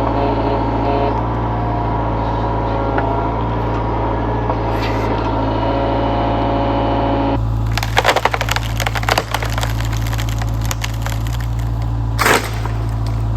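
Wood cracking and splintering as a tree or old stump is broken apart, over the steady running of a heavy machine's engine. The splintering starts about halfway through and ends with one last loud crack near the end.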